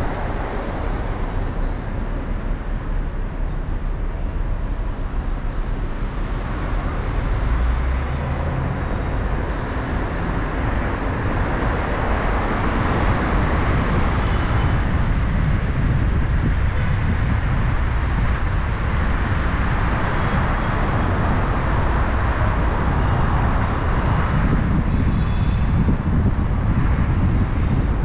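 Steady road noise of a car driving in city traffic: a continuous low rumble of tyres and engine with a hiss of passing traffic.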